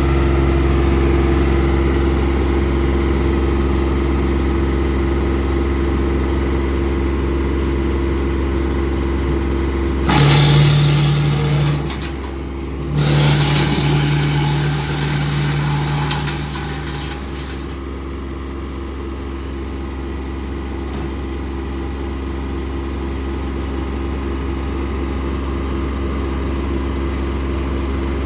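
Farmry wood chipper running steadily on tractor power. It gets louder and noisier in two stretches, about ten and thirteen seconds in, as it takes load, then settles back to an even hum.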